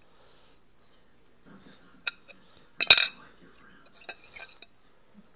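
Sharp clinks and a clatter of small hard objects: one clink about two seconds in, a louder clatter a little before the middle, then a few lighter clicks.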